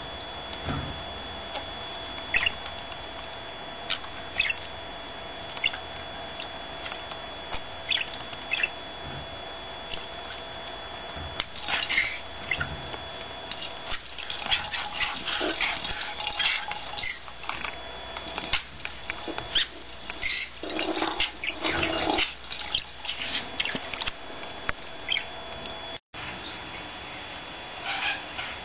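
Budgerigar giving short high chirps every second or two, then a busy stretch of chattering and clicking about halfway through as it pushes and pecks at a plastic ball.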